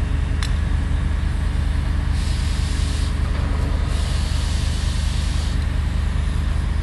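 A large engine running steadily at a low drone, with two bursts of hissing, about two and four seconds in, and a sharp click near the start.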